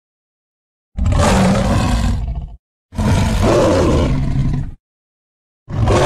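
Kaiju monster roar sound effects for a winged lion: three deep, rough roars, each about one and a half to two seconds long, with short silences between them. The first comes about a second in, and the third is still going at the end.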